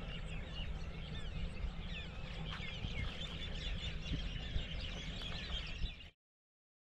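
Many small birds chirping and calling together in a busy evening chorus, over a steady low rumble. It cuts off suddenly about six seconds in.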